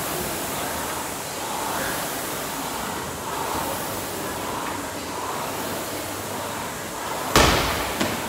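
Steady gym background hiss, broken about seven seconds in by a loud, heavy thud and a lighter knock just after it.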